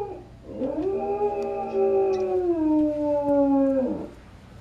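A dog howling: the tail of one howl slides down at the very start, then a new long howl rises in pitch, holds, steps down partway through, and slides down to stop just before four seconds.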